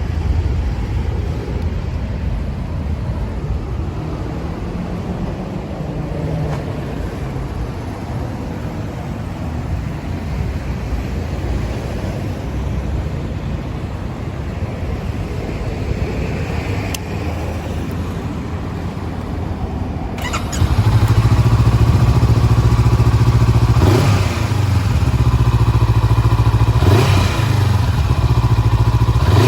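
Honda CBR400R's parallel-twin engine running through a Moriwaki aftermarket silencer: a steady low idle, then about two-thirds in the revs jump and are held higher and louder, with a brief dip and a couple of quick rises and falls in pitch, dropping back at the very end.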